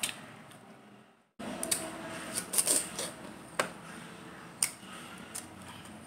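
Close-miked chewing of juicy fresh pineapple: wet, crackly mouth sounds with a run of crunches in the middle and a few single sharp clicks. The sound drops out to silence for a moment about a second in.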